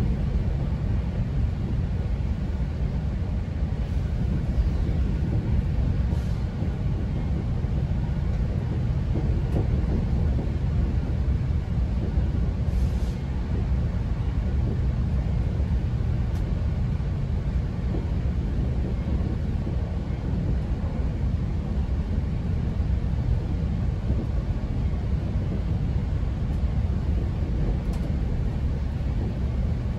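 Steady low rumble of a GO Transit commuter train running along the track, heard from inside a passenger coach.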